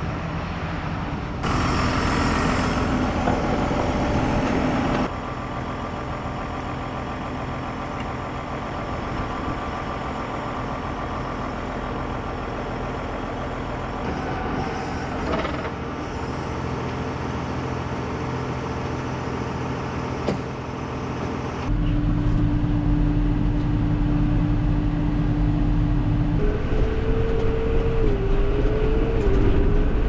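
Farm tractor engine running, heard in several short takes that cut from one to the next. From about three-quarters of the way in it is louder, heard from inside the cab on the road, with a steady whine that jumps higher a few seconds before the end.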